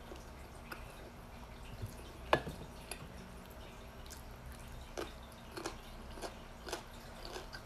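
Eating by hand close to the microphone: scattered wet clicks and smacks of chewing and of fingers picking food off a plate, one louder click a little over two seconds in.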